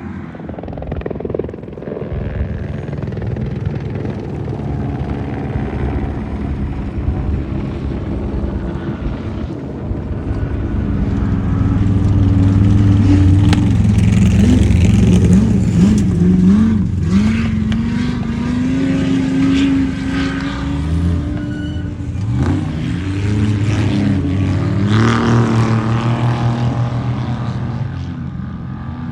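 Off-road race vehicle engines running at speed, the pitch rising and falling as the throttle and gears change. The engines swell to their loudest around the middle and come back up again later before easing off near the end.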